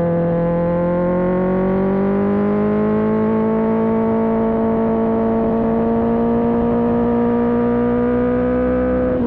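Kawasaki ZX-10R's inline-four engine running under load at steady revs. Its pitch dips slightly at first, climbs gradually over a couple of seconds, then holds.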